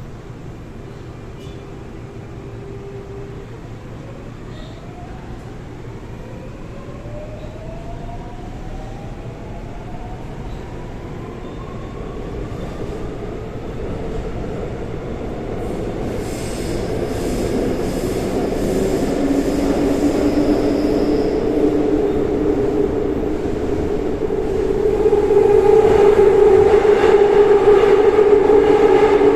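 Seoul Line 4 4000-series subway train with Daewoo/Alstom GTO-VVVF inverter drive accelerating away from a station: the inverter and traction motor whine glides steadily upward in pitch while the running noise of the car builds. In the last third the train is running loudly at speed with steady ringing tones.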